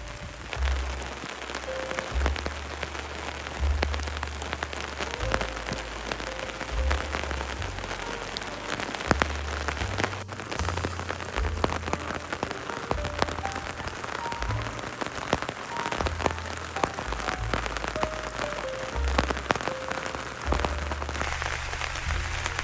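Steady rain with many close drops tapping, under background music with a melody and a low bass line.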